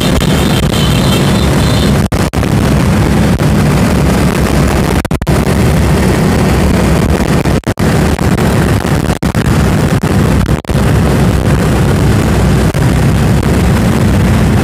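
A convoy of many motorcycles riding together, engines running under heavy wind rumble on the moving microphone. The sound is loud and dense throughout, cutting out for an instant a few times.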